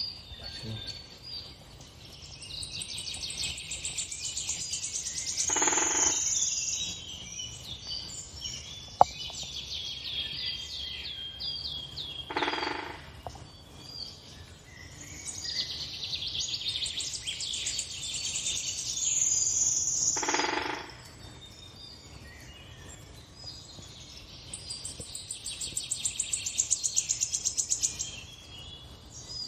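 Songbirds singing and chirping from a bird video playing on a TV, in spells of quick high trills a few seconds long with short pauses between. Three short hissy bursts break in, and there is one sharp click about nine seconds in.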